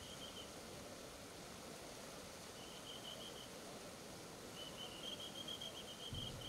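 Steady rushing noise of a swollen, muddy river in flood. Short high chirping trills come and go over it, three times, the last one longest. A brief low rumble comes near the end.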